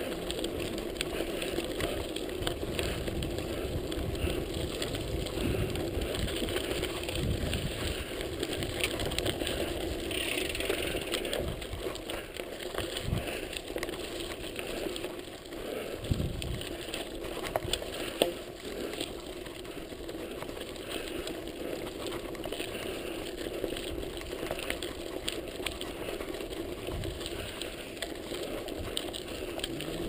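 Mountain bike rolling over a rough gravel track: the tyres crunch on loose stones and the bike rattles and clicks over the bumps, with a few sharper knocks past the middle. Wind rumbles on the microphone.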